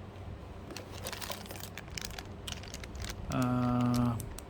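Motherboard accessories and their packaging being handled: light crinkling and small clicks. About three seconds in comes a steady, flat-pitched hum lasting about a second, the loudest sound.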